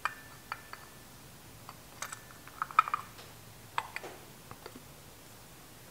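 Light metallic clicks and taps as an aluminium float bowl is fitted against a Honda CX500 carburetor body and the carburetor pair is handled on the bench. The clicks are scattered, with a quick run of them about halfway through.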